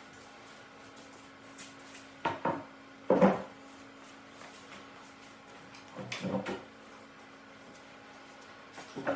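Wooden boards knocked and set down on a concrete floor: a pair of knocks a little after two seconds, the loudest just after three seconds, a cluster around six seconds and another near the end, over a faint steady hum.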